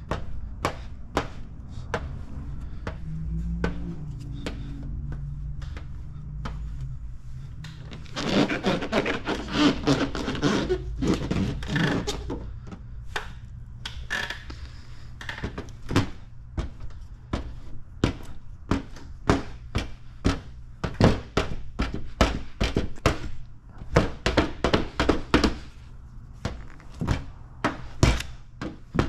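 Squeegee and hands working paint protection film down onto a car fender: a long run of irregular soft thunks and taps, several a second, busiest about a third of the way in.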